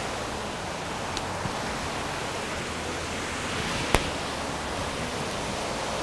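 Steady rush of water from a forest stream and its waterfall cascades, with one sharp click about four seconds in.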